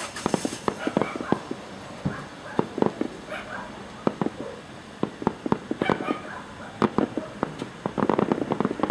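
Aerial fireworks shells bursting: an irregular run of sharp bangs and pops that thickens into a dense crackle near the end.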